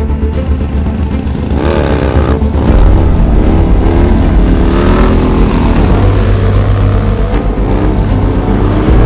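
Harley-Davidson V-twin motorcycle engine revving, its pitch rising and falling again and again, louder from about three seconds in.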